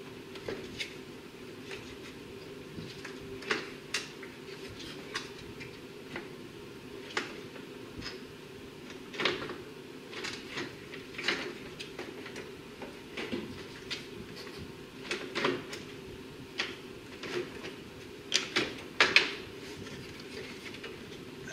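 Irregular hard plastic knocks and clicks as the radiator cooling-fan assembly is worked and pushed into place by hand, with a louder cluster of knocks near the end. A steady low hum runs underneath.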